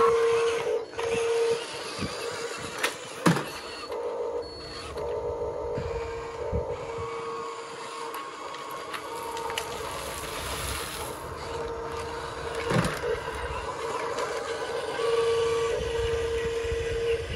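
Toy radio-controlled dump truck driving past over pavers, its small electric drive running, with a steady mid-pitched electronic tone that switches on and off repeatedly and a couple of sharp clicks.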